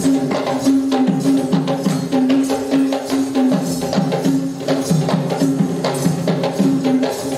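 Kandyan geta bera drums beating a fast, dense rhythm for Kandyan dance, with a steady pitched note held beneath the strokes.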